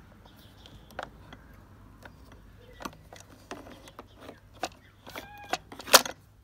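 Faint, irregular clicks and light knocks of plastic parts being handled: the generator's recoil starter handle and housing being moved by hand.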